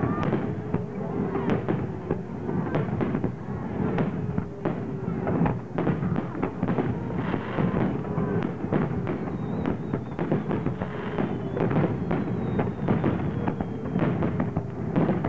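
Aerial firework shells bursting one after another: a dense, unbroken run of bangs and crackles.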